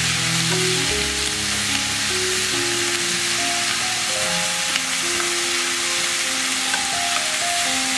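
Baby squid with minced lemongrass and garlic sizzling steadily in a hot oiled pan as it is stir-fried and stirred with wooden chopsticks, with a couple of light utensil taps in the second half. Background music plays underneath.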